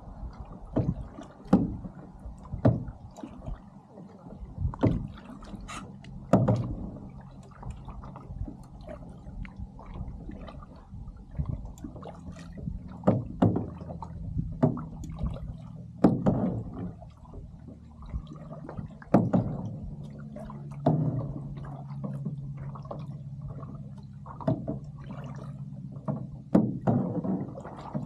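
Lake water splashing and slapping against the side of a moving boat in irregular hits every second or so, over the boat's steady low engine hum.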